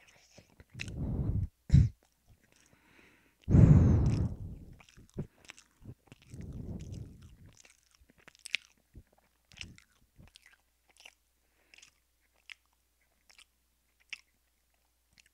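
Close-miked chewing of food, mouth right at the microphone: several louder muffled sounds in the first half, the loudest about four seconds in, then only small wet clicks of the mouth about once a second.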